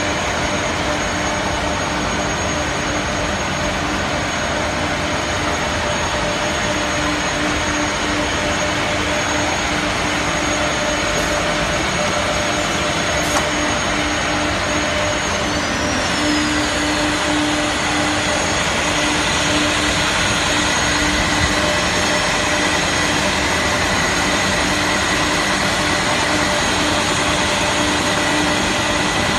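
Jelance double-row eight-spindle CNC mortising machine running, its high-speed spindles milling wooden workpieces: a loud, steady machine noise with several steady hums and whines, one of them pulsing on and off. A brief click comes about 13 seconds in.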